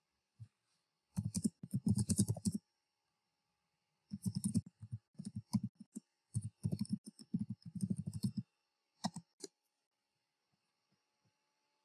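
Computer keyboard typing in several short bursts of rapid keystrokes, ending with two separate clicks.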